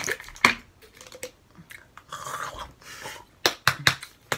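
Plastic gummy-vitamin bottle being handled and opened: sharp clicks and knocks of the cap and bottle near the start and again near the end, with a rustle in the middle as gummies are worked out of it.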